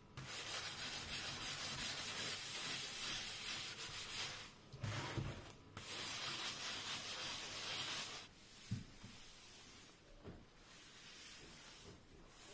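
Scrub Daddy sponge scrubbing The Pink Stuff abrasive paste across a glass-ceramic hob: a steady gritty rubbing in two long stretches with a short break about four and a half seconds in. It stops about eight seconds in, followed by a couple of short knocks.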